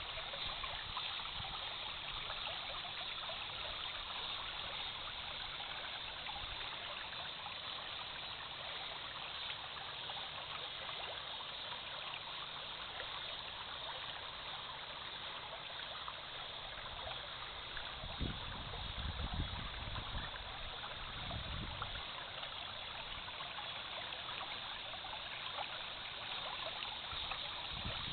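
Shallow stream running over and between rocks: a steady rush of water with trickling. A few low rumbles come in about two-thirds of the way through.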